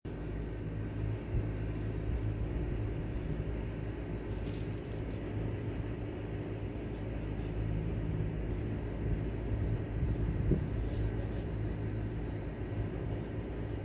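Steady low hum and rumble of an idling engine, with a few faint clicks.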